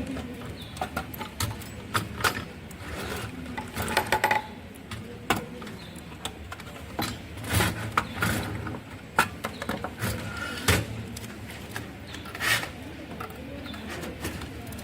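Irregular clicks, taps and knocks of desktop computer hardware being handled, a few sharper than the rest.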